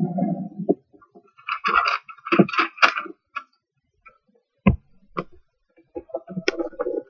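A sheet of paper being handled, folded and pressed flat by hand on a wooden table: irregular rustling and crinkling, with a few sharp clicks.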